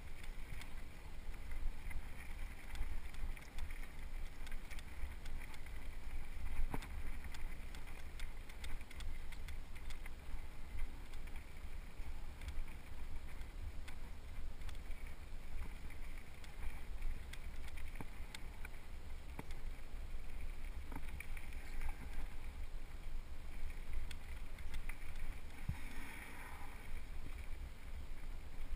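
Mountain bike rolling fast down a loose gravel trail: wind buffeting the camera microphone, with the tyres crunching over gravel and scattered clicks and rattles from the bike.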